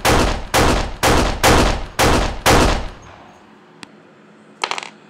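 Gunshot sound effects: six shots at an even pace of about two a second, each with a short ring-out, stopping about three seconds in. A single faint click follows, then a brief burst of noise near the end.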